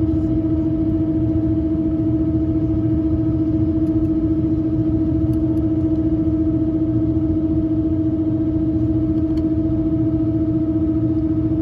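Airbus A319 cabin noise in descent: a steady engine and airflow rumble with a loud, steady hum on one pitch, the odd sound the passenger hears throughout the flight.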